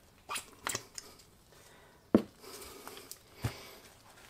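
A few light metal clicks and knocks from handling a Ducati two-valve cylinder head and its parts on a workbench during teardown, with one sharper knock that rings briefly about two seconds in and another near the end.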